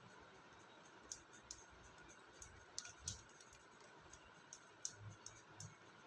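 Faint, scattered small clicks and taps of beads being handled and threaded onto a pendant loop, over near-silent room tone.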